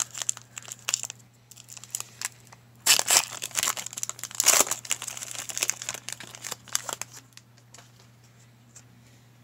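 Foil trading-card pack wrapper crinkling as it is torn open by hand, with the loudest crackling bursts about three seconds in and again halfway through, dying down over the last couple of seconds.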